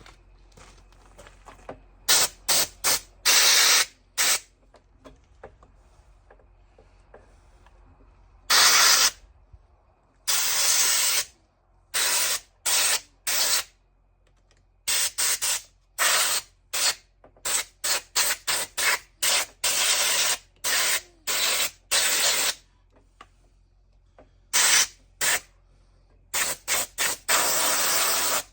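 Compressed air hissing in many short blasts, starting about two seconds in, some a fraction of a second and some a second or two long, blowing dust and debris out of a chainsaw's air-filter area and controls.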